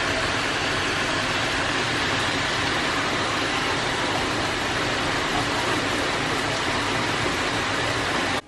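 Heavy rain pouring down in a steady hiss, cutting off suddenly near the end.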